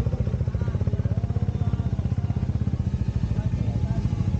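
Motorcycle engine idling close by: a steady, rapid low throb of exhaust pulses, with faint voices in the background.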